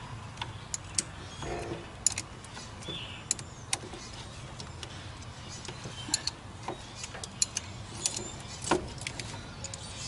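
Scattered sharp metallic clicks and clinks of a wrench and a soft lead battery-terminal clamp as the clamp is worked loose and pulled off the battery's negative post, over a steady low hum.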